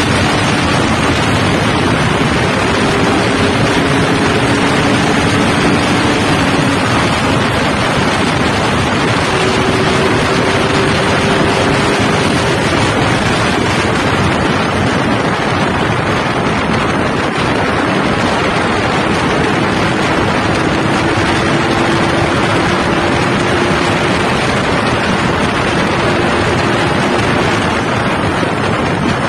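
Yamaha RX-King 2007's two-stroke single-cylinder engine running under way through its stock catalytic muffler, its pitch slowly rising and falling with the throttle, under heavy wind rush on the microphone.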